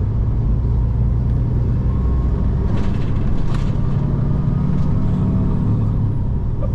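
Semi truck's diesel engine running at low speed, a steady low rumble with a few faint clicks about three seconds in.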